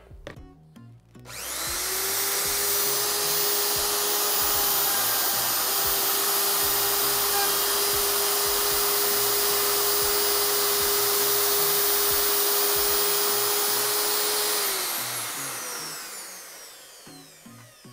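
Parkside POF 1200 D3 plunge router switched on about a second in, running up to speed with a steady high whine as its bit cuts a groove in a pine pallet plank, then switched off and spinning down with a falling pitch near the end.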